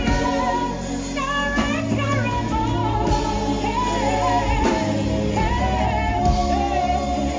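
A woman singing a melody into a microphone over a live band, with a bass guitar line and drums under her voice.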